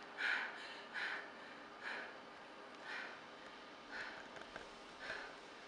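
A person taking short, sharp sniffing breaths, evenly spaced about once a second.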